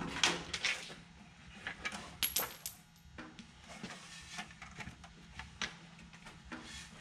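Scattered light knocks, clicks and clunks of a truck's headlight assembly being handled as it comes off the hood.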